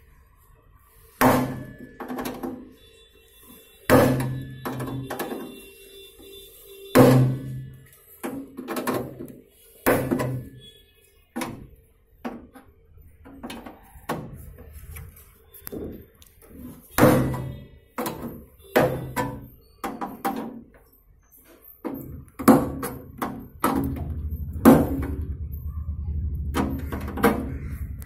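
Repeated sharp metal knocks and scrapes as a metal tool works at the sheet-metal turntable-motor cover on the underside of a microwave oven, opening it to reach the turntable motor. A steady low hum comes in near the end.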